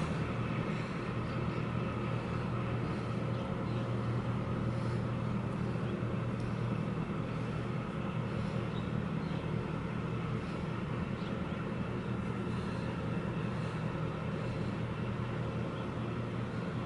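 Steady low drone of marine diesel engines from a large container ship and its harbour tug manoeuvring into port, with a few faint steady higher tones above it.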